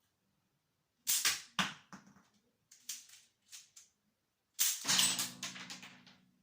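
Home-built K'nex M4A1 toy gun firing: sharp plastic snaps and clatter in two bursts, one about a second in and one past the middle, with light clicks between them. A short low buzzing ring follows the second burst.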